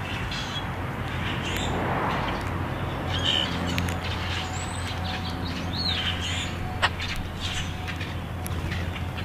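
Common grackles calling from the flock: scattered short, high chirps and squeaky notes, with one falling squeak about six seconds in. A sharp click comes just before seven seconds, over a steady low hum.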